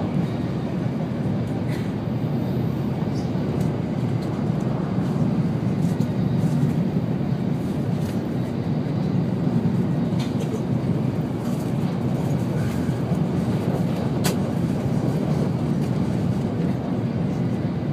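An N700-series Shinkansen train running steadily, heard inside the passenger cabin as a constant low rumble. A single short, sharp click sounds about three-quarters of the way through.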